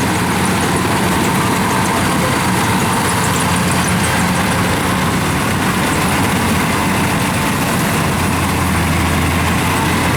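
Tractor engine running steadily under load as the tractor works its way out of a muddy hole on a slope.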